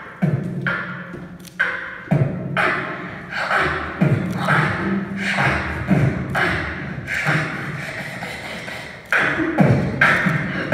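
Live human beatboxing: a steady groove of deep mouth-made kick drums about every two seconds, with snares and hi-hat clicks between them.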